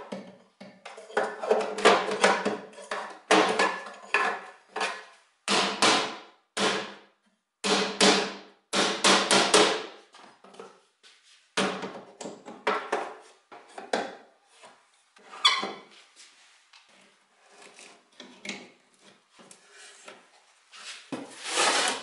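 Old wooden drawer being taken apart with hand tools: a putty knife prying at the bottom panel and nails pulled out with pincers. It makes a run of sharp scrapes and knocks of wood and metal, dense and loud at first, then sparser, quieter clicks, with one louder scrape near the end.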